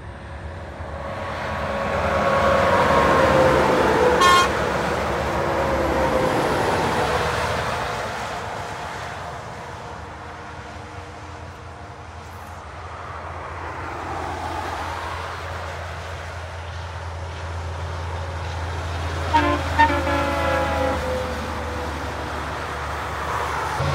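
Heavy trucks passing on a highway: engine and tyre noise swells and fades as each one goes by, its pitch sliding down as it passes. A short horn toot comes about four seconds in, and a truck horn gives two short blasts later on.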